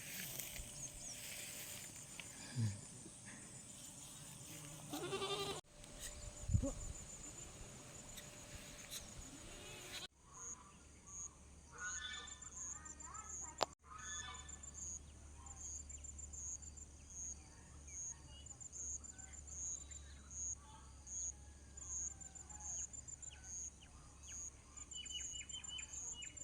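An animal bleating, one pitched call about five seconds in. In the latter part a short high chirp repeats a little more than once a second over a low steady hum.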